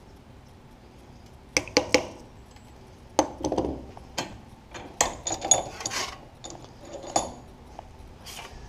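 Irregular sharp metallic clicks and clinks, some ringing briefly, starting about a second and a half in. This is the sound of a hand pop rivet gun and sheet metal parts being worked and handled.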